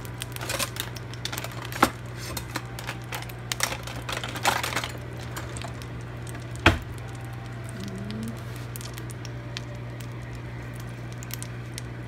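Butter melting in a hot nonstick skillet, crackling with many small pops and spits over a steady low hum. Two sharper pops stand out, one about two seconds in and a louder one a little past halfway.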